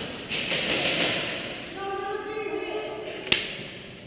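A single sharp airsoft shot cracks about three seconds in, after rustling and a distant called-out voice.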